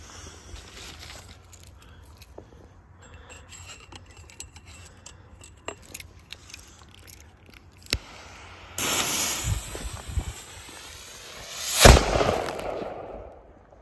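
Blitz-und-Donner firework rocket going off: a sudden loud hiss for about three seconds, then a sharp, very loud bang with crackling sparks near the end. It is a Durchzünder, the effect firing close to the launch point instead of high up.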